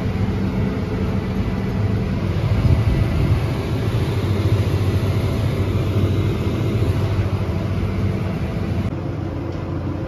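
Steady diesel drone of a John Deere 9770 STS combine harvesting corn, heard through the glass of a cab running alongside it.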